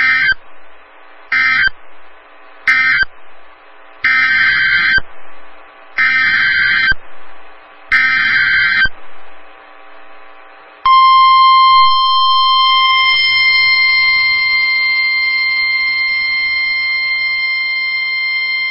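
NOAA Weather Radio's Specific Area Message Encoding (SAME) data bursts: three short electronic squawks (the end-of-message code), then three longer ones (the header encoding the next flood warning). After a short pause comes the steady 1050 Hz warning alarm tone, a single held tone that announces the next warning message.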